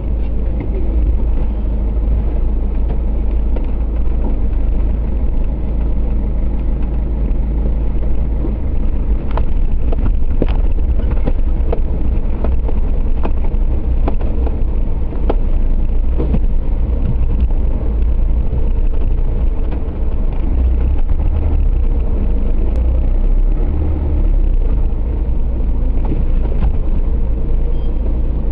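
Suzuki Jimny off-road vehicle's engine running on an off-road trial course, with a constant deep rumble and a run of sharp knocks and clicks about a third of the way in.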